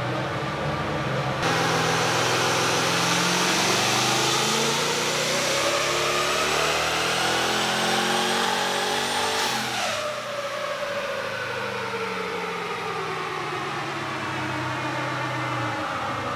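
Twin-turbocharged LS V8 in a Toyota 80 Series Landcruiser making a full-throttle pull on a chassis dyno. The engine note climbs steadily for about eight seconds, then breaks off sharply as the throttle closes, and the revs fall away.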